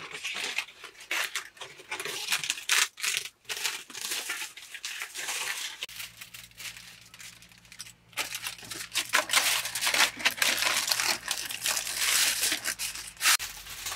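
Aluminium foil crinkling and rustling as hands fold it and press it tightly around a whole raw chicken, an irregular crackle that keeps going as the foil is handled.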